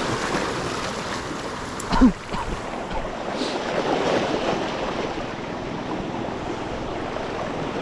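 Sea waves washing against a rocky shore, with wind buffeting the microphone. About two seconds in there is one short, sharp, loud sound.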